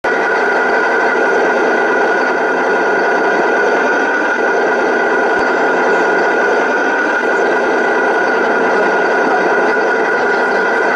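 Radio-controlled model fire truck running steadily while standing still: a continuous mechanical hum with a steady high whine through it.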